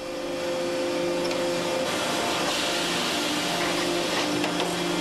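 SMC (sheet moulding compound) production machinery running steadily: a continuous hum with several held tones over a noisy hiss.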